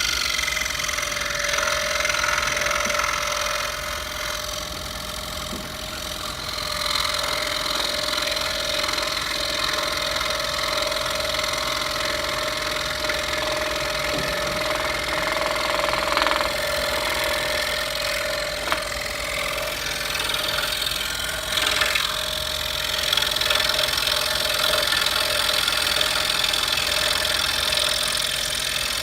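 Scroll saw running and cutting wood: a steady motor hum, with the rasp of the reciprocating blade through the wood coming and going as the piece is fed.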